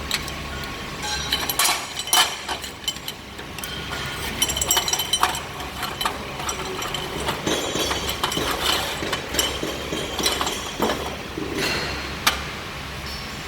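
Irregular metallic clinks and knocks from metal parts and tools being handled, over a steady low machine hum, with a denser stretch of fine crackling in the middle.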